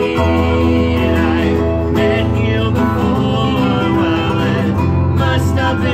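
Live acoustic music: a lever harp and an acoustic guitar playing a tune together, with plucked notes over a steady low bass line.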